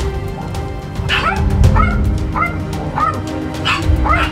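Dogs barking and yelping in a run of short calls that rise in pitch, about one every half second, over background music with long held notes.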